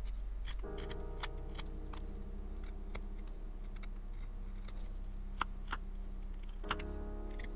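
Japanese carving knife (kogatana) shaving paulownia wood with the grain, a string of small crisp cutting clicks and scrapes as each slice comes off.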